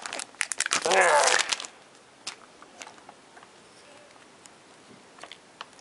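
Adhesive tape crinkling and crackling as it is pulled off a wound MacBook power adapter cord. There is a quick run of crackles in the first second and a half, then only a few faint handling clicks.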